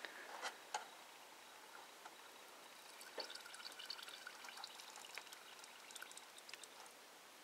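Faint water sloshing and dripping as a soldered brass carburetor float is held and turned under hot water in a plastic container for a leak test. A scatter of small, high ticks comes in the middle.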